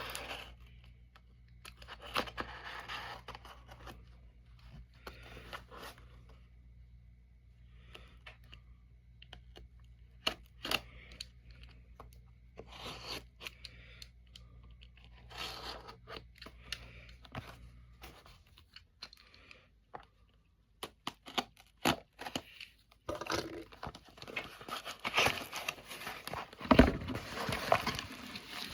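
Paper packaging being torn open and handled by hand: scattered rustles, crinkles and small clicks, with louder, busier tearing in the last five seconds.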